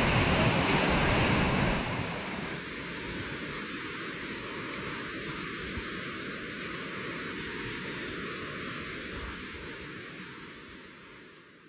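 Steady rushing outdoor noise with no tones or knocks in it, louder for the first two seconds, then dropping and fading out near the end.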